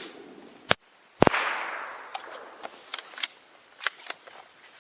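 A Schmidt-Rubin G11 rifle firing a 7.5x55 Swiss round: one sharp shot a little over a second in, its echo trailing off over about a second, with a sharp click just before it and several lighter clicks after.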